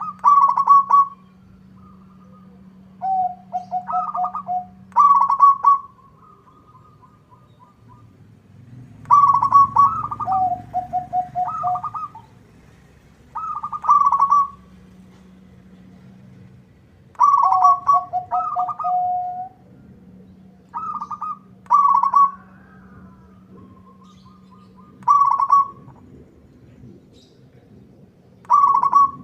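Zebra dove (perkutut) singing its rapid, stuttering cooing song: about eight phrases a few seconds apart, each a quick run of high notes, several dropping into a lower trill. A steady low hum lies underneath.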